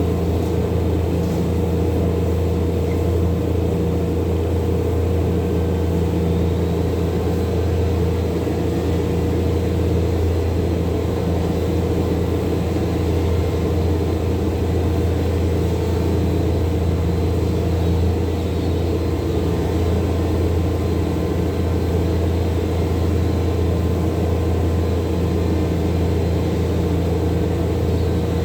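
A steady low mechanical hum, unchanging in level, with a constant higher tone above it.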